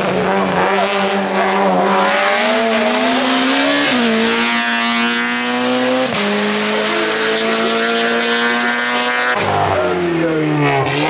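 Race car engine accelerating hard, its pitch climbing and then dropping at gear changes about four and six seconds in. In the last couple of seconds a second race car arrives, its engine note falling in pitch.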